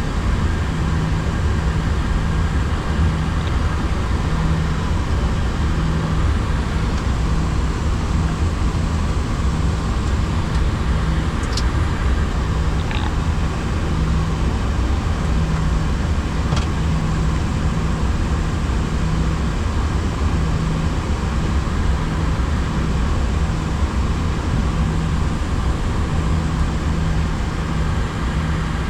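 Steady cockpit noise of an Airbus A340-300 taxiing in with its engines at idle: a low hum and a rushing hiss, with a low tone that comes and goes and a few faint clicks.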